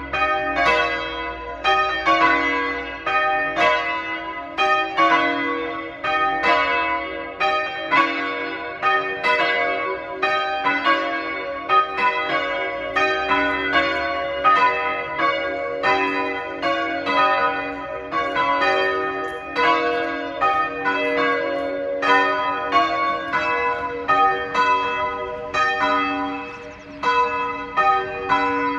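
Ring of three church bells, the tenor about 6 cwt in B, rung full-circle in English change-ringing style and heard from outside the tower: an even, unbroken stream of strikes, each note ringing on into the next.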